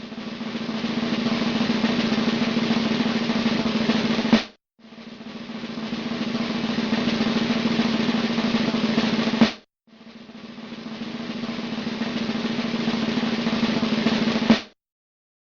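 Snare drum roll sound effect played three times in a row. Each roll builds steadily louder for about four and a half seconds and ends on a sharp final hit.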